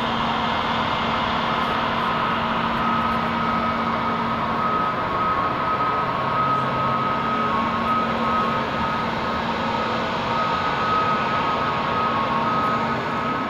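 Airbus A321neo jet engines running at taxi power: a steady jet hum with a higher whine that comes in after a second or two.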